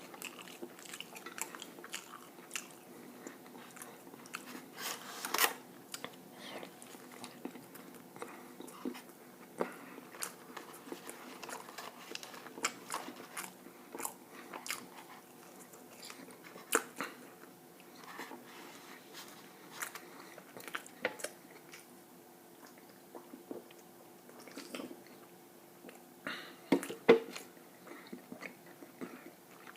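Close-miked chewing and mouth sounds of someone eating, with irregular wet clicks and smacks; the loudest come about five seconds in and again near the end.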